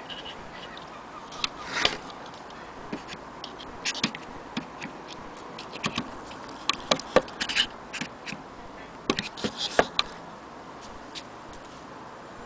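Irregular small clicks and light scrapes from a vintage Junghans striking wall clock being handled, thickest in two clusters past the middle.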